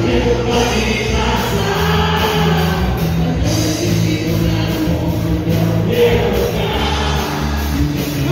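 Music: a song with singing voices over a steady beat.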